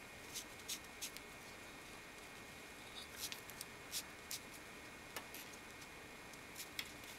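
Faint rustling and short scratchy clicks of nylon 550 paracord being pulled by hand through a monkey's fist knot as the slack is cinched out, coming in small clusters near the start, around the middle and near the end.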